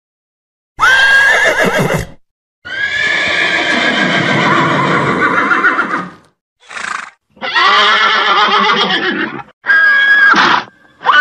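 Horses neighing and whinnying: a run of about five loud calls with short gaps between them, the second one long, about three and a half seconds.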